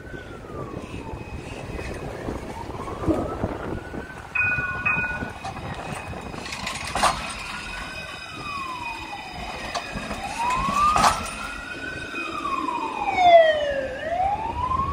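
Police car siren wailing: a slow rise and fall, about one cycle every four seconds.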